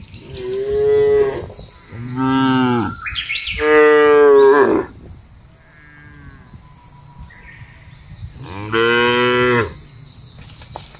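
Cattle mooing: three loud, drawn-out moos close together in the first five seconds and a fourth near the end, with a fainter moo from further off in between.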